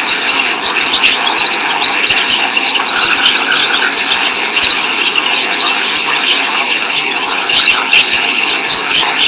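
Computer-generated sonification of a live tweet stream: a dense, steady wash of noise crowded with many rapid overlapping clicks, each sound set off by an incoming tweet.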